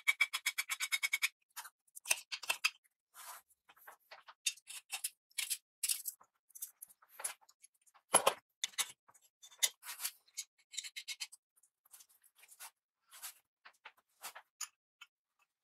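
Small brass blowtorch parts being handled and fitted by hand: a quick run of fine clicks in the first second, then scattered light clicks and taps of metal parts, with one louder knock about eight seconds in.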